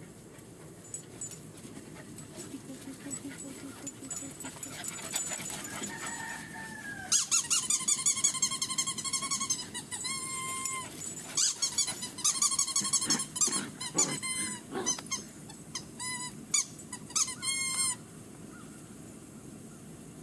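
German Shepherd puppies, about seven weeks old, yelping and whining in high-pitched cries as they wrestle in play. One rising-and-falling whine comes first, then a rapid run of cries from about seven seconds in that stops shortly before the end.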